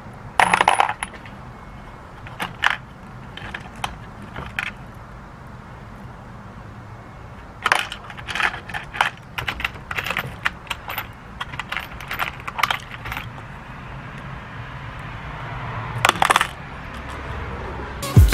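Steel bolts and nuts clinking and rattling against each other and the plastic compartments of a parts organizer as they are sorted through by hand, in several short bouts of quick clicks.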